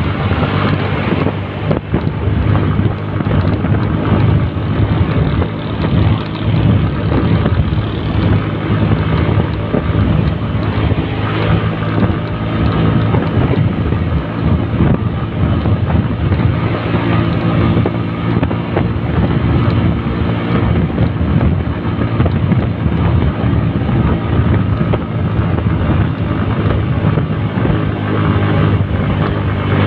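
Motorcycle engine running steadily while riding along the road, with wind buffeting the microphone.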